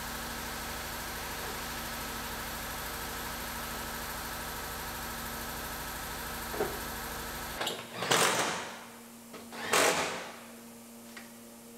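A steady background hum cuts off abruptly about two-thirds of the way through. Then come two loud, brief clunks about a second and a half apart as the refitted front door of a 2006 GMC Sierra pickup is moved and closed on its hinges.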